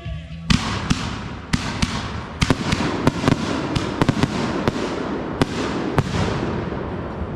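Fireworks going off in rapid succession: a dense run of sharp bangs at irregular spacing over continuous crackling.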